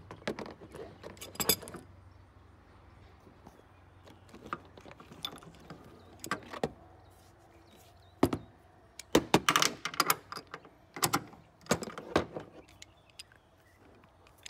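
Scattered metallic clinks and knocks of tools being handled while preparing to remove the oil filter. There is a short cluster about a second and a half in, and a busier run of knocks from about eight to thirteen seconds in.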